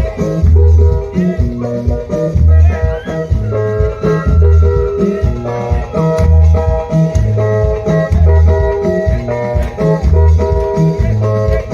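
Upbeat music with plucked guitar, a strong repeating bass beat and a shaker.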